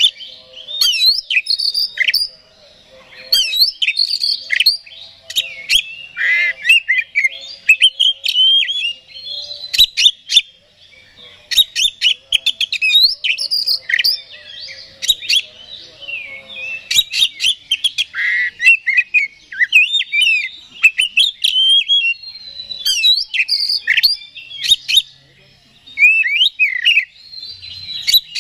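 Male oriental magpie-robin singing a loud, varied song of rapid whistles, chirps and harsh notes, with sharp clicks between phrases and a few brief pauses. This is the agitated, full-throated fighting song (gacor) that keepers play as a lure to rouse other magpie-robins.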